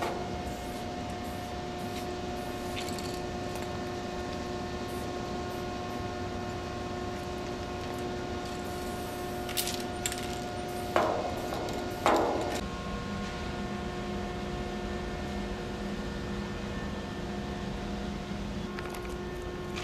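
Aerosol spray paint can hissing in short bursts, over a steady hum. Two sudden knocks come about eleven and twelve seconds in.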